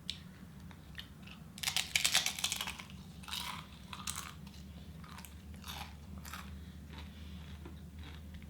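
Crunchy chips being bitten and chewed close to the microphone: a loud crackling crunch about two seconds in, then several shorter, softer crunches.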